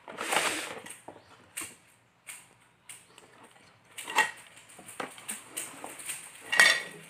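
Unboxing handling noise: plastic wrapping rustling at first, then scattered clicks and knocks as a cardboard box and small parts are moved on a table, with the loudest knock near the end.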